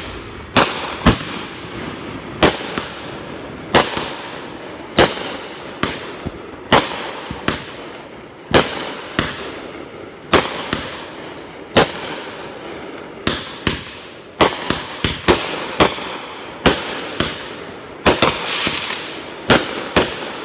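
Aerial fireworks bursting in a steady string of sharp bangs, about one a second, each trailing off briefly. The bangs come closer together in the last third, with a short crackle among them.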